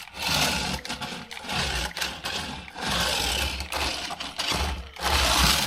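Small brushed electric motor of a cheap 1/24-scale RC drift car running in about six short bursts of full throttle. The car has single-speed, on/off throttle control.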